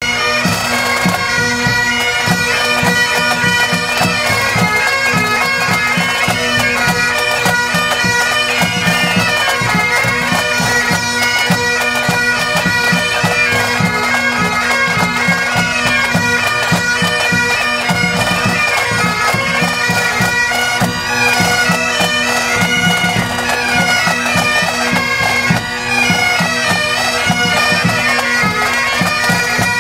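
Pipe band playing: several Great Highland bagpipes sound a melody over their steady drone, with snare drums rattling out the beat.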